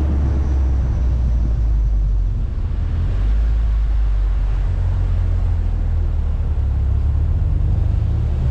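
VW Golf R (Mk6) turbocharged four-cylinder engine droning low at a steady pace while driving. Its note starts to climb near the end as the car accelerates.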